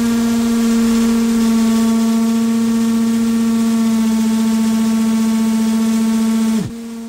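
Cordless drill with a spade bit boring into a wooden door, its motor giving a steady whine that drops in pitch and cuts out near the end. The drilling goes slowly, which the driller takes for a battery low on charge.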